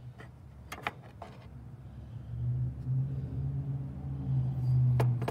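Low, steady rumble of a vehicle engine that grows louder about halfway through. A few light clicks in the first second and a half come as the bent, taped nails are picked up off the wooden table.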